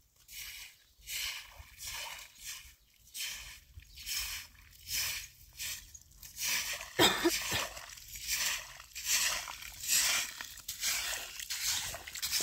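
Bundled straw broom sweeping water and mud along a wet path, in brisk scratchy strokes about two a second, one stroke about seven seconds in louder than the rest.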